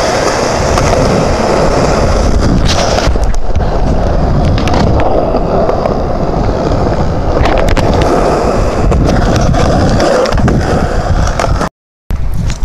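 Skateboard wheels rolling over concrete: a steady, loud rumble with a few sharp clicks. It stops suddenly near the end.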